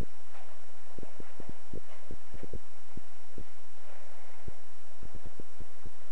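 A steady low hum with many short, dull thumps at an irregular pace, in clusters of up to several a second.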